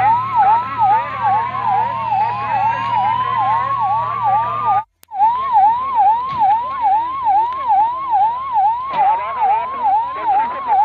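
Fire tender's electronic siren in a fast yelp, about two up-and-down sweeps a second, over a low steady engine hum. A second, slower siren tone glides along with it in the first half. The sound cuts out briefly about five seconds in and then resumes.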